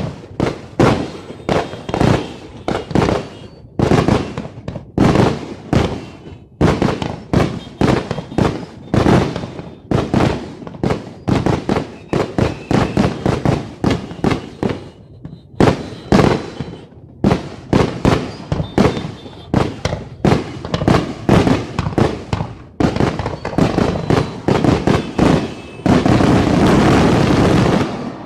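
New Year fireworks going off in quick succession: sharp bangs, several a second, that merge into a continuous rush for about two seconds near the end.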